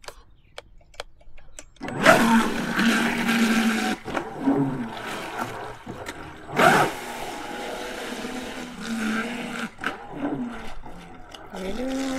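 RC speedboat's brushless motor and propeller starting up about two seconds in, a whine with churning water whose pitch rises and falls as the throttle is worked, with a loud surge just past halfway and a rising glide near the end as the boat pulls away. A few faint ticks come before the motor starts.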